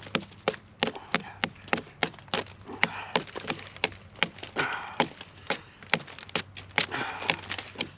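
Repeated sharp chopping knocks on a piece of fatwood (resinous pine), about three strikes a second.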